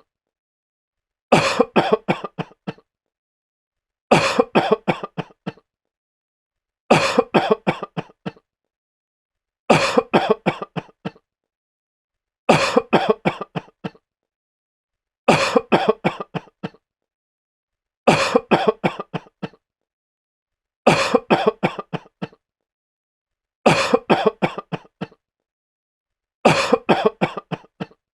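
A sick man coughing in fits of several quick, harsh coughs, each fit lasting about a second and a half and coming back about every three seconds, with silence between fits. The fits look alike, as if one coughing fit repeats over and over.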